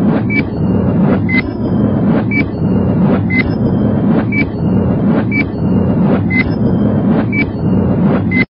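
Countdown sound effect: a short high beep with a tick about once a second, over a steady low rumble. It stops suddenly at the end.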